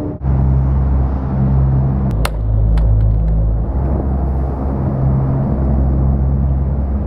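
A loud, steady low rumble. About two seconds in, a sharp crack and then a smaller one, the powered respirator hitting the pavement after a 7.5 m drop and bouncing once.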